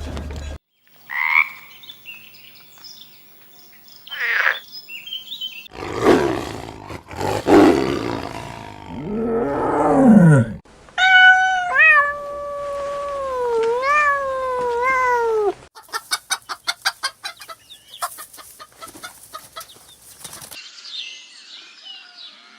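A string of different animal calls, one short clip after another: brief cries, a loud rough call, a long pitched call that wavers up and down, then a rapid run of clicks.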